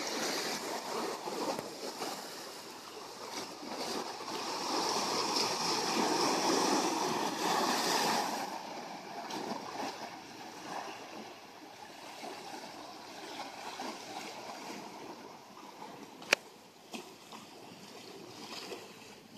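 Small sea waves washing and splashing among shoreline boulders, swelling louder for a few seconds in the first half, then settling to a softer wash. A single sharp click near the end.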